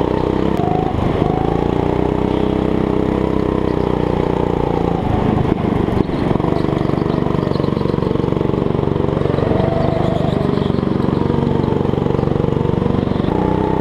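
Go-kart engine running hard, heard from on board, its pitch rising and falling as the kart accelerates out of and eases into corners. A couple of brief knocks about five to six seconds in.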